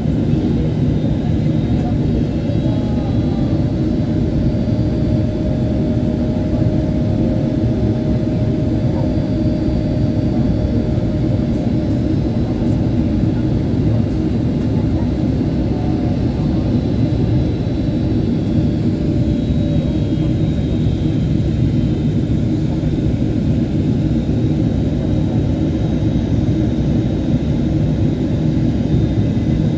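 Steady jet airliner cabin noise: an even drone of the engines and the air rushing past the fuselage, with a faint steady hum above it.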